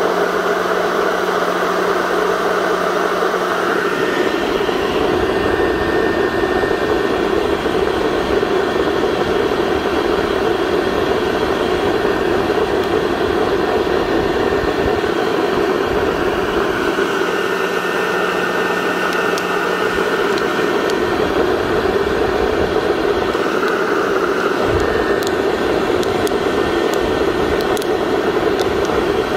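Heat gun blowing hot air steadily up through a tin-can coffee roaster full of beans. In the last few seconds scattered sharp pops begin: the beans reaching first crack.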